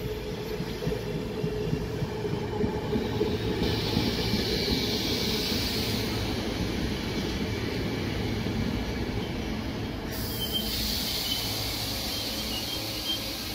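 Regional passenger train rolling slowly along the platform, its wheels rumbling steadily on the rails. A high squeal from the wheels comes in about four seconds in and again near ten seconds, with a thin whistling tone in the second spell.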